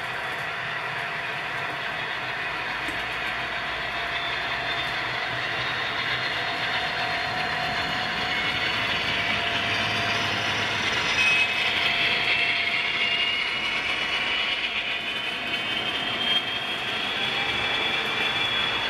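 HO scale model train with sound-decoder CSX diesel locomotives passing close by: the diesel engine sound from the models' speakers mixes with the rolling of the wheels on the track. It grows louder through the middle as the locomotives come past, and a high whine rises in pitch in the second half.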